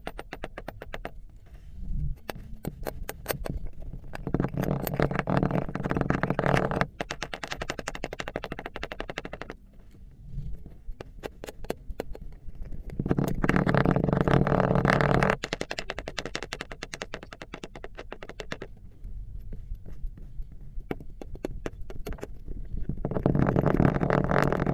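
Kinetic sand being squished and cut, a dense run of fast crunchy crackles, swelling three times into louder stretches of a couple of seconds.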